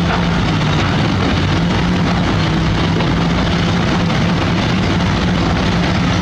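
Diesel engine of heavy construction machinery running steadily under load, a constant low hum over dense mechanical noise.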